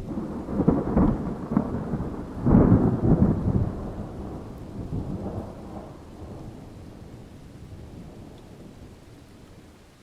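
Thunder: a crackling clap that peaks twice in the first few seconds, then a low rolling rumble that slowly fades away.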